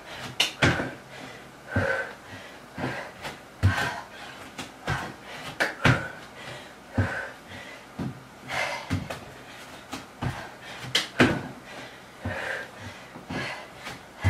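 A woman breathing hard in short, breathy exhales while doing curtsy burpees, with thuds of her feet and hands landing on an exercise mat about once a second.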